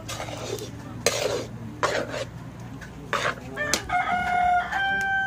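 A metal spoon scrapes against a wok several times as thick jackfruit jam is stirred. About two-thirds of the way in, a rooster crows, one long, held call that is the loudest sound.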